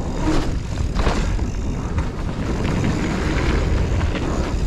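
Riding noise from a hardtail mountain bike going fast along a bermed dirt trail: wind buffeting the microphone and knobbly tyres rumbling over the ground, with short clatters from the bike over bumps.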